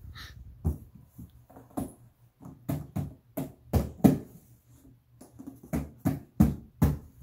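A toddler's hands patting and slapping the top of a cardboard shipping box, in a string of irregular thumps about two a second.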